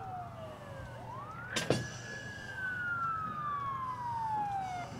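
Emergency vehicle siren wailing: its pitch falls, sweeps sharply up about a second in, then falls slowly again. A single sharp knock sounds just after a second and a half in.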